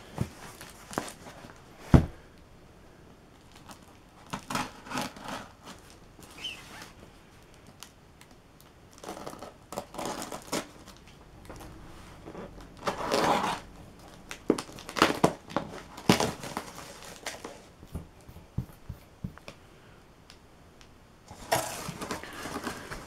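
Packing tape being peeled and torn off a cardboard box, with cardboard flaps rustling and scraping as the box is opened. There is a sharp knock about two seconds in.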